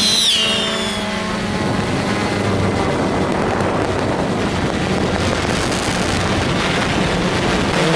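Quadcopter drone's motors and propellers running in flight: a steady rushing hum with a low drone underneath. In the first second a high whine glides down in pitch.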